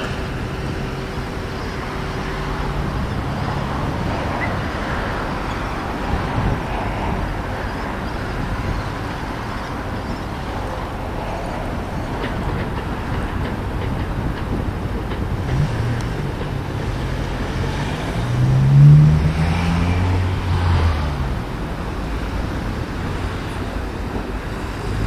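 Tram car rolling slowly along a curved track, with street traffic noise around it. A louder low hum rises and falls about 19 seconds in.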